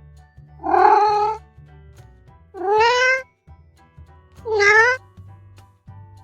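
A domestic cat meowing three times, each meow about half a second long and the last two rising in pitch, over background music with a steady low beat.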